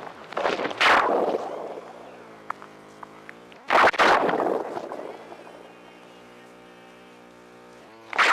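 Electronic noise music: a shaken Krackatone noise instrument run through distortion and a ring modulator. It gives harsh, crackling bursts of distorted noise about a second in, near four seconds in and again at the end. Between the bursts, buzzing ring-modulated tones bend in pitch and slowly fade, a sound like a dial-up modem.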